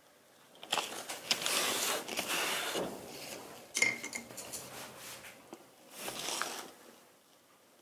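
Small painting tools and jars being handled at a work table: scraping and rustling, then one bright clink with a short ring about four seconds in, and another brief scrape near the end.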